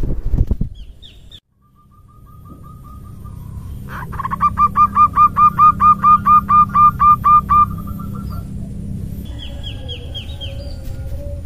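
Female zebra dove (perkutut) lure call: a faint quick trill, then a loud run of about sixteen short, clipped notes at about five a second. A few higher rising chirps come near the end, over a steady low rumble, with a brief low thump at the very start.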